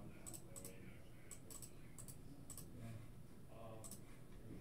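Faint clicks of a computer mouse and keyboard, short sharp taps coming in pairs and small clusters every half second or so.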